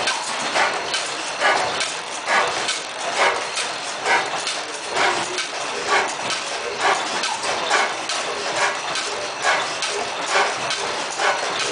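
10 HP New Era double-fuel stationary gas engine running, with a regular beat of firing strokes a little faster than one a second and lighter clicking of the valve gear between them.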